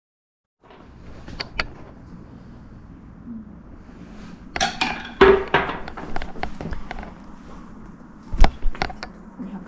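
Metallic clinking and jingling about halfway in, among scattered light knocks, then two sharp knocks about half a second apart near the end.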